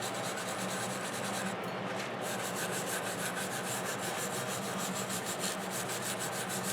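Wire brush scrubbing slag and residue off stick-weld beads on rusty steel plate: quick scratchy back-and-forth strokes, several a second, with a short break about a second and a half in.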